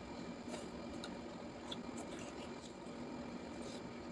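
Faint, scattered small clicks and soft squishes of food being picked up and handled by hand, over a steady low hum.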